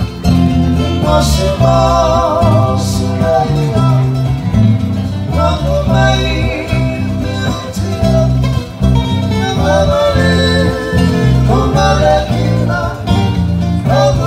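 Men singing a Fijian song together to strummed ukulele and guitar. A rhythmic bass line runs underneath, with the voices swelling and wavering on held notes.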